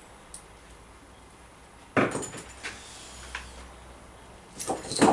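Steel armour strips and hand tools being handled at the stake: a faint click just after the start, a sharper metal clatter about two seconds in, then a few light ticks.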